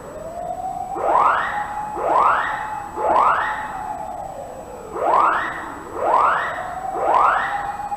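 Building fire alarm sounding in a false alarm: echoing electronic tones that each sweep upward in about half a second, three a second apart, a short gap, then three more. Fainter underneath, a siren slowly rises and falls.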